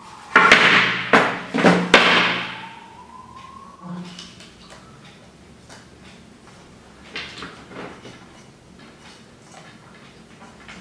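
Loud scraping and rustling for about two seconds as a shrink-wrapped lithium battery pack is slid out of the scooter's deck and set down on a glass tabletop. Fainter clicks and rustles of wires being handled follow.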